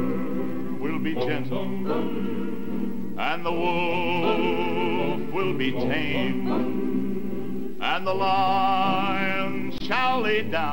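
Slow gospel song: a singer holds long notes with a wide vibrato, phrase after phrase a few seconds apart, over a steady instrumental accompaniment.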